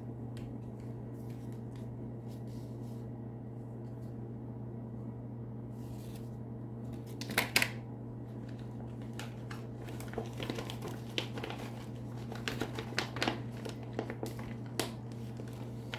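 Hands handling small items and packaging: scattered light clicks, taps and rustles, the loudest about seven and a half seconds in and busier in the last few seconds, over a steady low hum.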